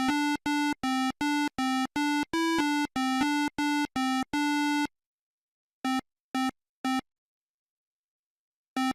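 Buzzy electronic square-wave beeps playing a simple tune: about a dozen quick notes, mostly on one pitch with a few a little higher, then after a pause three short beeps, and more short beeps near the end.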